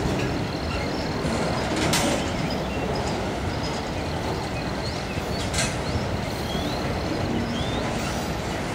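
Autorack freight cars rolling slowly past: a steady rumble of steel wheels on rail, with two sharp knocks, about two seconds in and again past five seconds.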